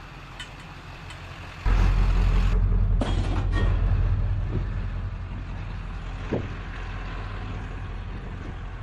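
A heavy vehicle's engine rumbling low and steady, starting suddenly about one and a half seconds in and easing off slightly, with a few light knocks over it.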